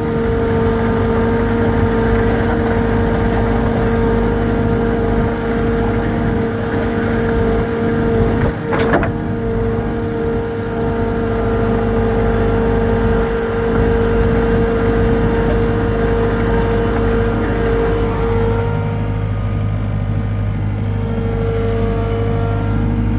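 An engine running steadily at a constant speed, with one sharp click about nine seconds in.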